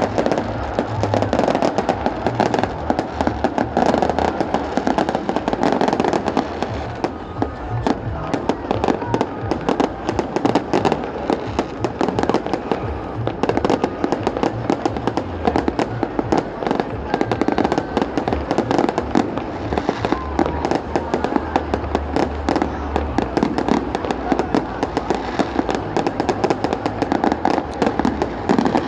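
Fireworks display going off without pause: a dense run of rapid bangs and crackling.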